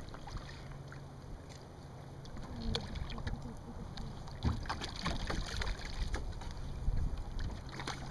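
Scattered knocks and clicks of handling in a small fishing boat while a freshly landed catfish is being unhooked, over a low steady hum and some wind on the microphone.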